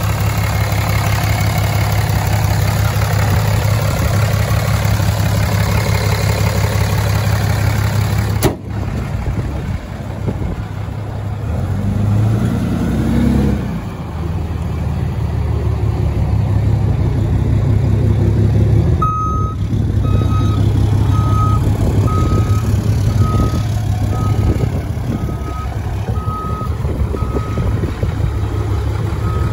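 2011 Ram 5500's 6.7-litre Cummins turbo-diesel idling steadily, heard close up in the open engine bay and then from outside the truck. About two-thirds of the way through, a reversing alarm starts beeping, about once a second.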